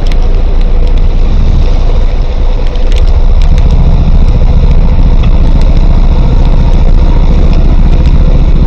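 Motorcycle engine running while riding along a street, with loud wind rumble on the microphone. The low rumble grows heavier about three seconds in.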